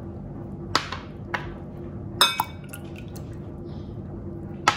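A small glass cup clinking several times against a glass bowl while evaporated milk is poured in, sharp clinks with brief ringing, the loudest about two seconds in, over a steady low hum.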